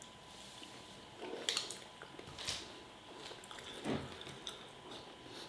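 Someone chewing a mouthful of beef curry: faint wet mouth sounds with a few soft clicks and smacks.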